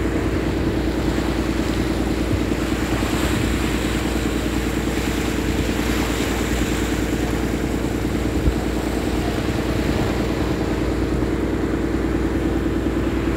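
A fishing boat's engine running steadily under way, a constant drone with wind and water rushing over it. One brief knock about eight and a half seconds in.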